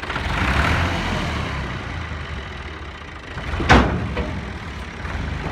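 New Holland Ghazi tractor's diesel engine running while its hydraulic trolley tips a load of sand, louder in the first couple of seconds. One sharp bang sounds a little over three and a half seconds in.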